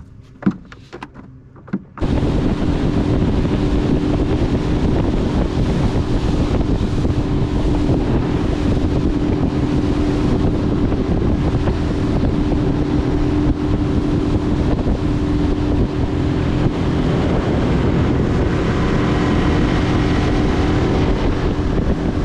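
A few knocks and clicks, then about two seconds in a boat running under way: loud, steady wind rushing over the microphone with the motor's steady drone beneath.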